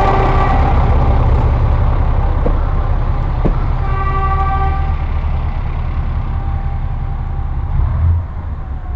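JR Shikoku 2000 series diesel railcar running slowly with a steady, heavy engine rumble. Two sharp clacks come before the railcar sounds its horn once, for about a second, around four seconds in.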